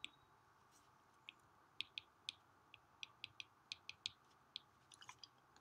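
Light, irregular clicks of a stylus tip tapping on a tablet's glass screen while equations are handwritten, about fifteen taps, over faint room hiss.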